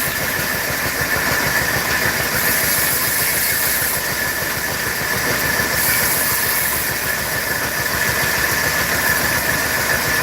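A machine running steadily, with a fast even pulsing underneath and a constant high tone on top.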